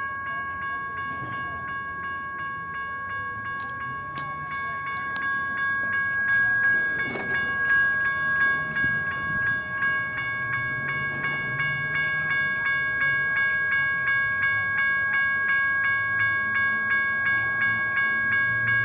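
Railroad crossing bells (General Signals Type 1) ringing with rapid, even strikes, over the low rumble of doublestack container cars rolling past; the sound grows louder about six seconds in.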